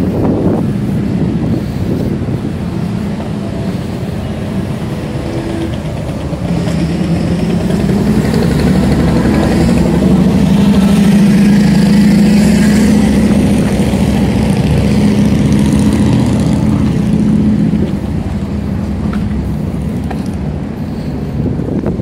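A motor vehicle's engine running at a steady pitch, swelling louder for about ten seconds from around six seconds in and then dropping away near the end, over continuous street rumble.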